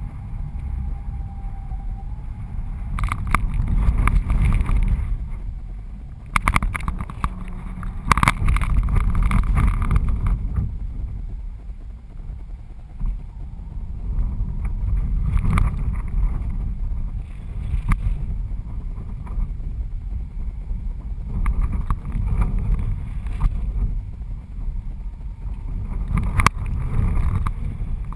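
Wind buffeting a GoPro HD camera mounted on the strut of a flying kitesurfing kite: a low rumble that swells in gusts every few seconds, with occasional sharp ticks.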